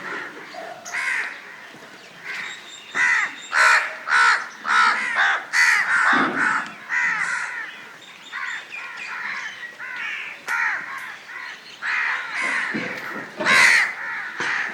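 Crows cawing over and over, harsh calls following each other quickly and sometimes overlapping, with the busiest flurries in the middle and again near the end.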